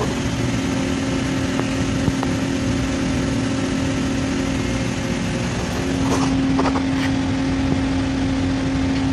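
Steady drone of running industrial machinery with a constant hum, its pitch stepping up slightly about six seconds in.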